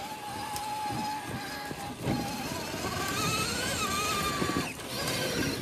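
Whine of an RC rock crawler's electric motor and gears, its pitch wavering with the throttle. It climbs higher about three seconds in and stops suddenly just before the end. Under it are the scrabbling and knocking of the tyres over roots and leaf litter.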